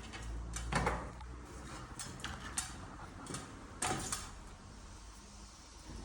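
A few separate light knocks and clicks of objects being handled, over a low steady hum.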